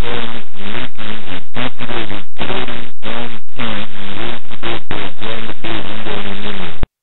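Extremely clipped, buzzy lo-fi 8-bit PCM audio, recorded onto an EPROM at just under 8 kHz and played back from the raw data. There is no DC offset, so the wave is pushed to one side and badly distorted. It is made of choppy pitched fragments that bend in pitch and cuts off abruptly near the end.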